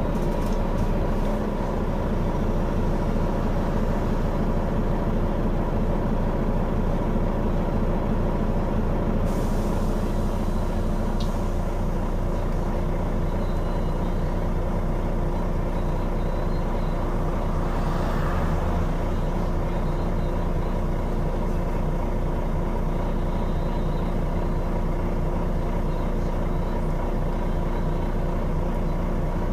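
Dublin Bus GT-class double-decker heard from inside: a steady engine drone with several steady whining tones, and a short hiss about two-thirds of the way through.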